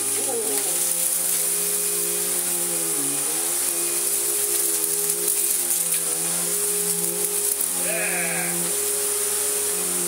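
Electrolux Z4622 bagged upright vacuum cleaner running, a steady motor hum with a hiss of rushing air. Its air path has been cleared of built-up crud during restoration. The pitch dips briefly about three seconds in, and a short higher sound comes near the end.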